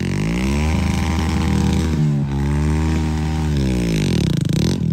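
Tractor's diesel engine revving. The pitch climbs at once and holds, dips and climbs again about two seconds in, then drops and picks up near the end.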